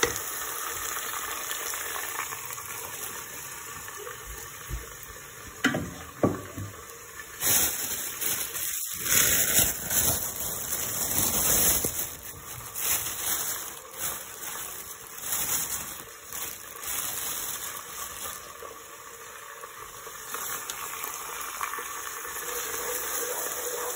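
Chopped onions sizzling in hot oil in a non-stick pot as they fry to golden brown, stirred with a wooden spatula. A few knocks and a louder stretch of clatter and rustling come in the middle.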